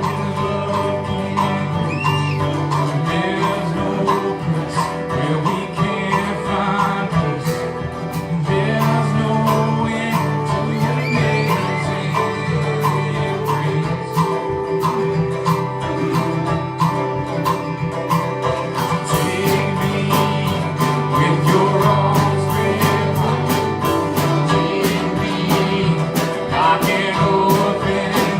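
Worship music in a country-bluegrass style: strummed acoustic guitar and other strings playing a song with a steady pulse, with singing.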